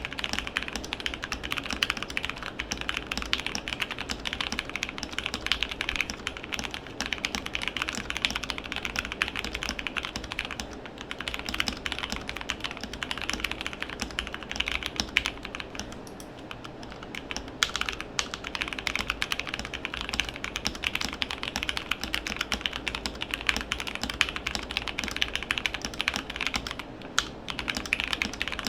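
Fast continuous typing on a modded Drop ALT mechanical keyboard with lubed Gateron Phantom Brown tactile switches: dense, rapid keystroke clacks, with a brief slowdown about halfway through and a short pause near the end.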